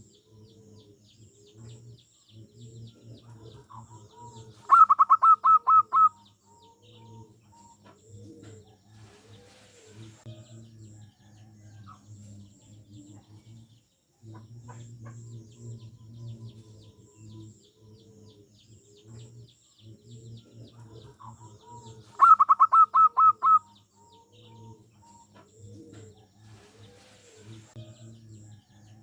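Zebra dove (perkutut) song: a loud, rapid staccato run of about seven notes, heard twice, over steady quieter low calling and faint high chirping from other birds.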